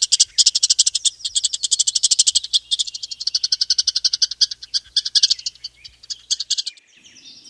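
Palm squirrel giving a rapid, high-pitched chirping call, many chirps a second, which stops near the end.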